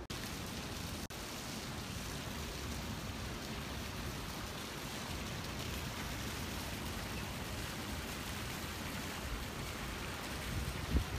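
Steady, even rushing noise of water outdoors, from the pool's splashing jets and the surf beyond, cutting out for an instant about a second in. Near the end a gust of wind starts buffeting the microphone.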